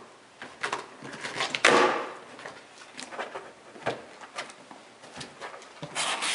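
A large cardboard shipping carton being opened by hand: scissors slit the packing tape, then the cardboard is pulled apart and folded back, with irregular scrapes, rustles and knocks. The loudest is a short rasp of tearing or scraping cardboard about two seconds in.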